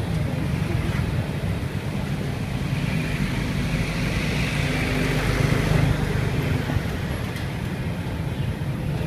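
Street traffic noise: a steady low engine rumble that swells near the middle, as a vehicle passes, and then eases off.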